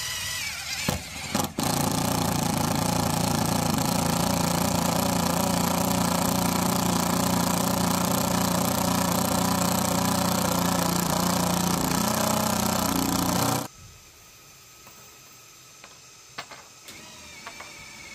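A power tool's motor runs steadily for about twelve seconds, then cuts off suddenly, leaving a few light knocks.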